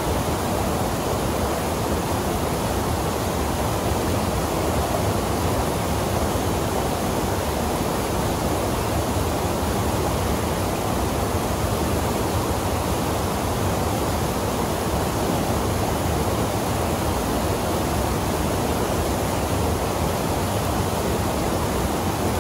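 Whitewater rapids and a small waterfall pouring into a rock pool, a steady, unbroken rush of water.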